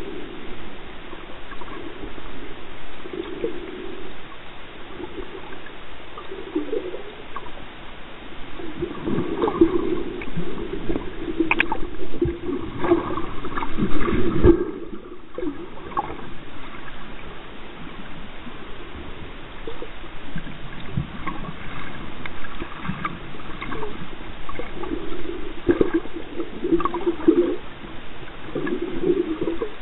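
Underwater ambience picked up by a submerged camera: muffled water surge and gurgling, with scattered clicks and knocks. The sound grows busier and louder in the middle, ending in a heavy thump.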